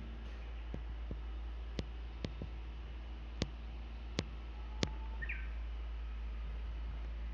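Five sharp clicks spaced over a few seconds, over a steady low rumble. About five seconds in comes one brief, faint Japanese bush warbler call: a short low note leading into a quick higher flourish.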